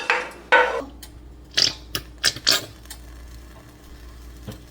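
A cooking utensil scraping and clinking against a pan, several quick strokes in the first two and a half seconds, then quieter.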